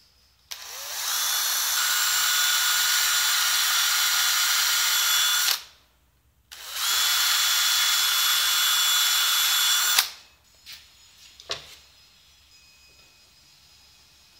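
Makita cordless drill running at a steady speed in two long runs, the first about five seconds and the second about three and a half, each starting and stopping abruptly. A couple of light clicks follow near the end.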